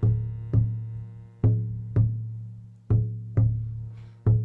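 Hand drum beaten in a steady two-stroke, heartbeat-like rhythm: pairs of strikes about half a second apart, each pair coming roughly every one and a half seconds. A shruti box holds a sustained drone chord underneath.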